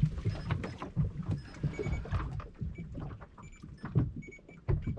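A fishing reel being wound in on a small boat, with scattered irregular clicks and knocks of rod and reel handling over a steady low rumble of water against the hull.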